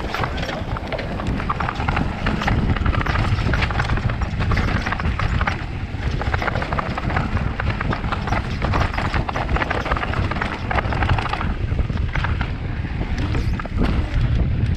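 Specialized Kenevo electric mountain bike riding fast down a rocky trail. The tyres knock and crunch over stone and the bike rattles in a dense stream of clicks, over a steady low rumble.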